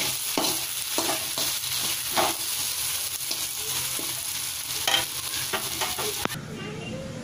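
Egg noodles frying in a hot metal wok, sizzling, while a metal spoon stirs and scrapes them against the pan in repeated strokes. The sizzle cuts off suddenly about six seconds in.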